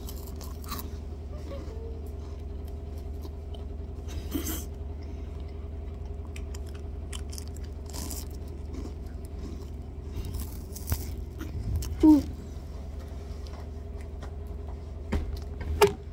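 Choco Heim chocolate-cream wafer sticks being chewed close to the microphone: soft intermittent crunches and mouth clicks over a steady low hum, with a brief bit of voice about twelve seconds in.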